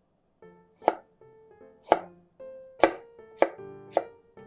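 Kitchen knife cutting a carrot into thin strips on a wooden cutting board: five sharp chops about a second apart, coming a little faster near the end, with faint background music underneath.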